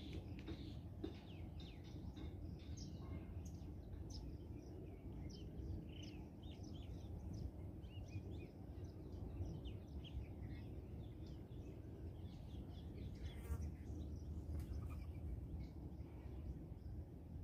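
Small birds chirping and calling in many short notes, with one brief louder call a little past the middle, over a steady low background rumble.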